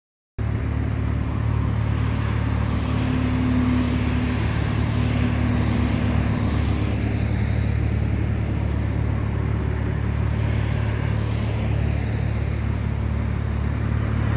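Steady highway traffic noise: cars and trucks passing on a multi-lane road, with a low rumble throughout and a vehicle sweeping past near the end.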